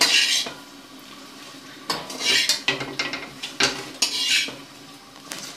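Metal spoon scraping and clattering against a steel wok while stirring a chicken and vegetable filling, in three bursts: at the start, about two seconds in, and about four seconds in.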